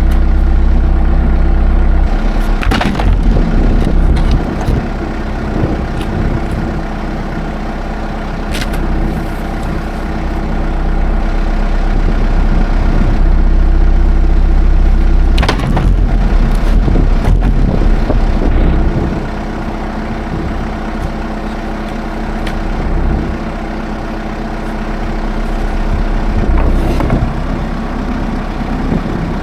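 A tractor engine running steadily, its level dropping and rising a few times as the load changes, with a few sharp clunks.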